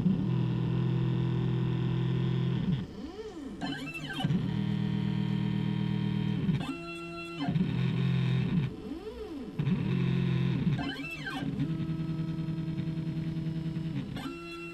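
Stepper motors of a hobby CNC router driving the axes as the machine traces letters: a steady pitched whine that glides up and down in pitch as each move speeds up and slows down, broken by several brief pauses between moves.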